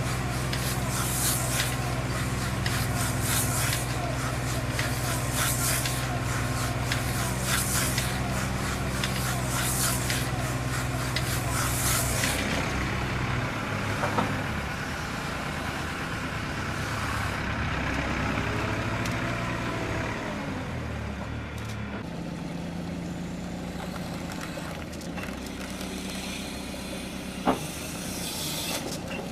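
A farm machine's engine running steadily, with repeated short hissing bursts every second or two for the first twelve seconds. After that the engine goes quieter, its pitch dips and rises again, and a sharp knock comes near the end.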